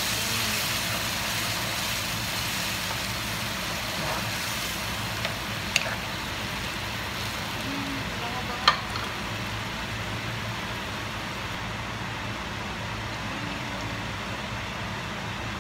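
Coconut milk sizzling in a hot frying pan over fried smoked fish and aromatics while it is stirred with a spatula. There are two sharp knocks of the spatula on the pan, about six and nine seconds in. The sizzle thins out toward the end.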